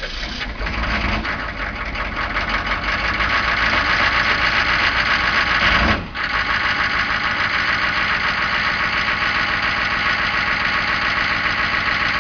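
Chevrolet 6.5L turbo-diesel V8 running just after a cold start, with a steady diesel knock; it builds over the first few seconds, dips briefly about six seconds in, then settles into a steady idle.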